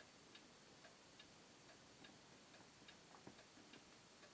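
Faint steady ticking, about two ticks a second, over near-silent room tone.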